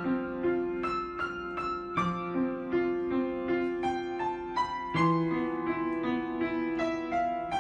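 Piano music: a slow melody of struck notes, two to four a second, over held lower notes.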